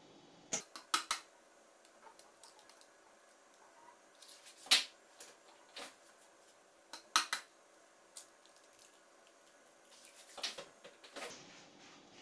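Eggs being tapped on the rim of a metal mixing bowl and cracked into it: a handful of sharp clicks and knocks a few seconds apart, some in quick pairs.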